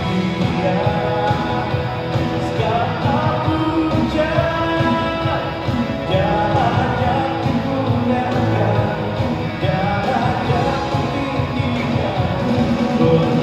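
Live band playing a rock-style worship song with a singer.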